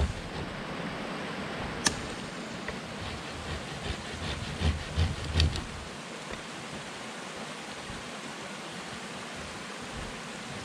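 A few chopping blows on the tops of wooden wall stakes: a sharp crack about two seconds in, then three dull thuds around five seconds in, over a steady background hiss.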